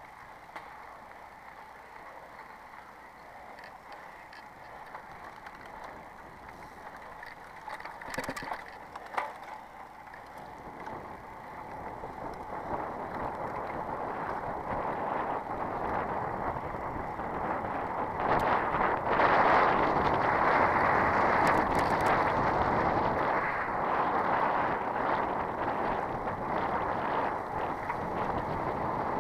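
Bicycle tyres rolling over a dirt and gravel road, with wind on the microphone: a steady rushing noise that grows louder from about a third of the way in and is loudest just past the middle. There are a few sharp clicks about eight to nine seconds in.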